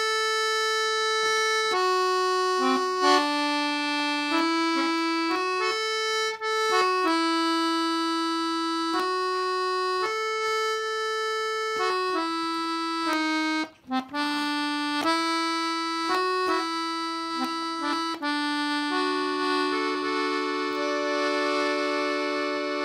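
Hohner Norma III chromatic button accordion playing a melodic passage on its high-reed register, the single high reed that gives a bright, concertina-like tone. The notes change every half second or so, with a short gap about 14 seconds in, and it ends on several notes held together as a chord.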